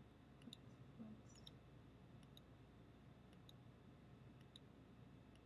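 Faint computer mouse clicks, about one a second, some in quick pairs, over quiet room tone.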